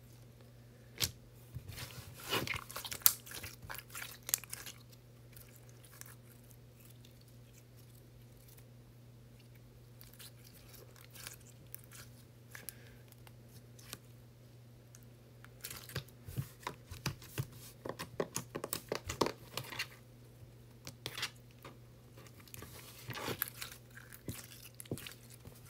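Clear slime being squeezed and folded by hand, giving sticky crackling clicks and pops. The clicking comes in clusters: for a few seconds near the start, then, after a quiet stretch, over most of the last ten seconds. A faint steady hum runs underneath.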